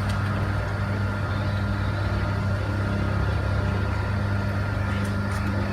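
Electric motor of a feed and fertilizer mixer running steadily with a low, even hum and a faint high whine.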